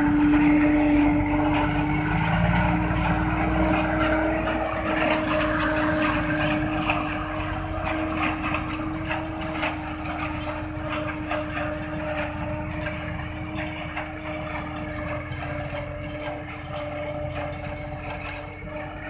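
Tractor-pulled napier (elephant grass) harvester running and chopping: a steady mechanical hum under a clatter of scattered ticks. It slowly fades as the machine moves away.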